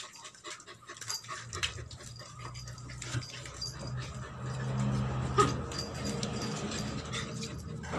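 Dog whining, a low, drawn-out sound that grows louder about halfway through, with scattered light clicks of claws on the tiled floor.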